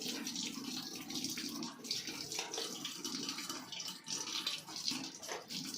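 Running water splashing as a plastic baby feeding bottle is rinsed clean.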